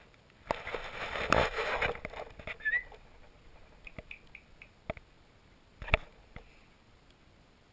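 Scuffing and knocking of a GoPro being jostled and shifted on carpet by playing dogs, with one short high squeak partway through and a few sharp taps against the camera afterwards.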